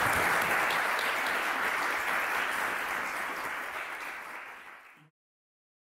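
Audience applauding, the clapping slowly fading and then cutting off abruptly about five seconds in.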